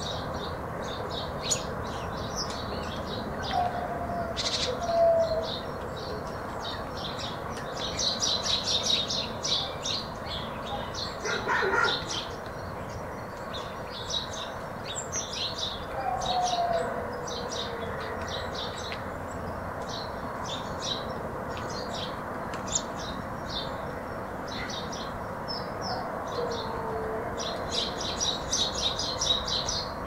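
Small birds chirping in a stream of short, high calls, busiest in a couple of bursts, over an even background hush of open country. Now and then a lower, downward-gliding call sounds from farther off.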